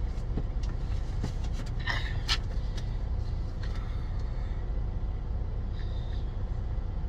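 Semi truck's diesel engine idling, a steady low rumble heard inside the cab, with a few sharp clicks about two seconds in.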